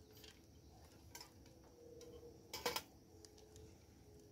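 A spinning reel clicking a few times while a hooked fish is played on the line. The loudest is a quick cluster of clicks a little past halfway.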